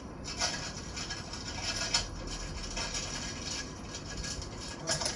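Plastic snack wrappers and bags crinkling and rustling, with irregular small rubs and taps as snack packets are handled and packed into an assortment.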